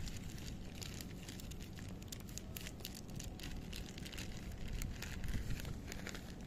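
Cats crunching dry kibble: a rapid, irregular run of crisp clicks, over a low rumble of wind on the microphone.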